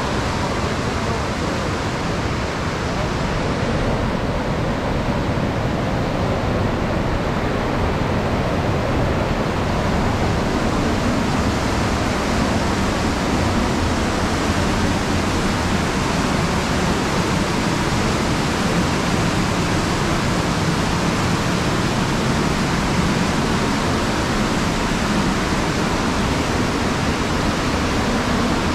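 Steady rush of whitewater: a fast mountain river pouring over rocks and boulders.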